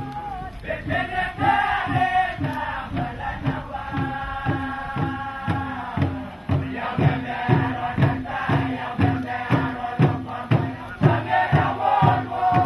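Group chanting in held, harmonised notes over a steady beat of kundu hand drums, about two strikes a second.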